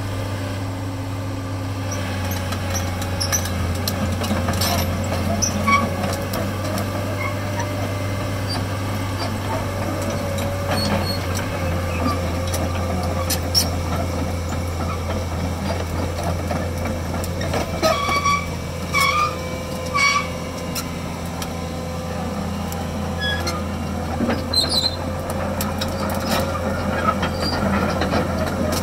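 Kobelco SK250LC crawler excavator's diesel engine running steadily as the machine works its boom and tracks. Scattered clanks and a few short squeals come from the steel tracks and undercarriage, two of the squeals close together about two-thirds of the way through.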